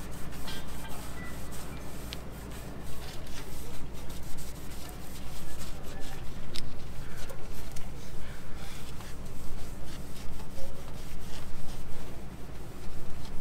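Cloth rag rubbing and wiping along the seams of a metal stack pipe, cleaning them with acetone before sealing. Uneven scuffing with scattered small knocks, over a steady low hum.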